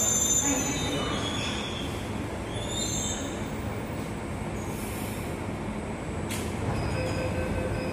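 Delhi Metro train moving slowly along an underground platform, its wheels squealing in high tones that fade over the first few seconds, under a steady rumble. There is a single click about six seconds in.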